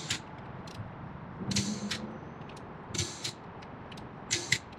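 Half-inch-drive click torque wrench with a socket on the lug nuts, set to 129 foot-pounds. It makes short bursts of metallic ratchet clicking, four of them about a second and a half apart, as each nut is tightened until the wrench clicks.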